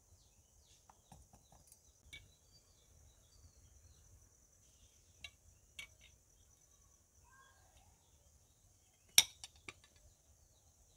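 Sparse light clinks and scrapes of a knife and plate against a steel cake bowl, then a sharp metal clink about nine seconds in as the hot bowl is turned out onto a plate, with a couple of smaller knocks after it. A steady faint insect trill runs underneath.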